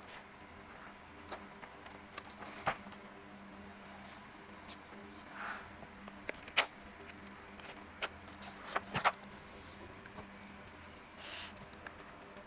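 Sparse, irregular light clicks and taps of plastic keycaps being handled, with two brief rustling scrapes, over a steady low hum.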